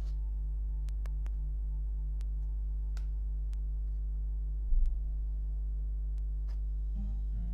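Steady low electrical hum, with faint scattered ticks and one dull knock about five seconds in.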